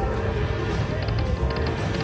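Lightning Dollar Link slot machine playing its game music during a spin, steady electronic tones with light repeated ticks over a low background bed.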